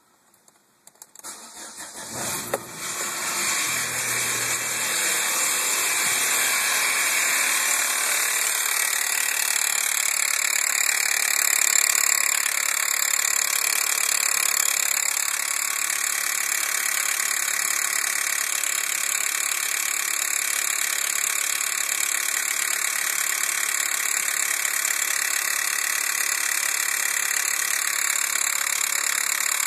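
Chevrolet Astra's flex-fuel four-cylinder engine cranking and catching about two seconds in, then running at a steady cold idle with a strange noise heard when the engine is cold. The owner's tags point to the manifold as its cause.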